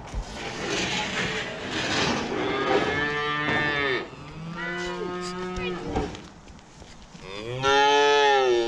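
Young calves mooing: three drawn-out calls that rise and fall in pitch, the last one the loudest, near the end. A rustling noise is heard in the first couple of seconds.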